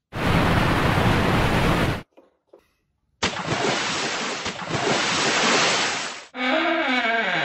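Milk poured from a gallon jug into a mug, sounding like a loud rush of water for about two seconds. After a short gap, a second loud rushing, splashing noise comes as a cookie is dunked in the milk. Near the end, a sound of several tones sliding down in pitch.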